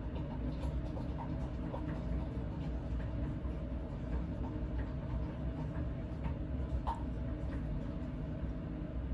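A wooden popsicle stick stirring a borax and PVA mixture in a small glass beaker as it thickens into slime, making faint scraping and light clicks against the glass, with a slightly louder click about seven seconds in. Under it runs a steady low hum of room machinery, the loudest sound throughout.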